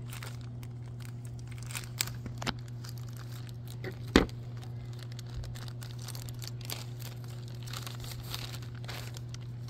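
Clear plastic toy bag being crinkled and torn open by hand, with a few sharp snaps of the plastic, the loudest about four seconds in. A steady low hum runs underneath.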